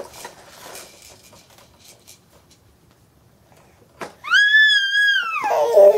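A baby's high-pitched squeal, held for about a second and arching up and then down, about four seconds in, running straight into a lower vocal sound that falls in pitch near the end. A short spluttering burst comes at the very start.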